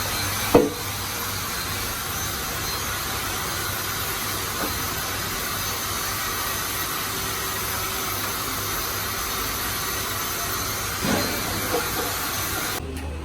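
Compressed air hissing steadily from a blow gun, cutting off abruptly near the end. A sharp knock sounds about half a second in.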